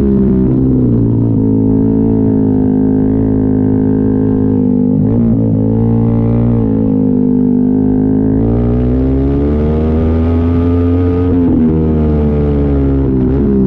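Motorcycle engine through an Austin Racing aftermarket exhaust, running at a steady drone. The pitch dips and recovers briefly a few times and climbs about eight seconds in.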